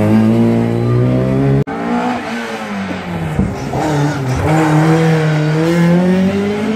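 Rally car engines at full throttle. One car's engine note is cut off abruptly about a second and a half in. A second rally car then comes off the throttle for a junction, its engine note dipping, and accelerates away with a steadily rising note.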